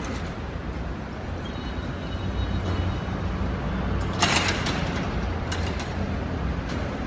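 City street traffic noise: a steady low rumble of passing vehicles, with a brief noisy burst about four seconds in.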